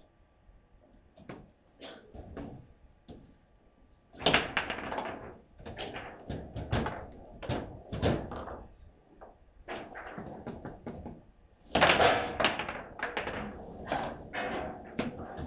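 Foosball play: sharp knocks and clacks as the ball strikes the plastic players and the table walls and the rods are worked. The knocks are sparse at first, then come in fast runs from about four seconds in, with the loudest bursts at that point and again about twelve seconds in.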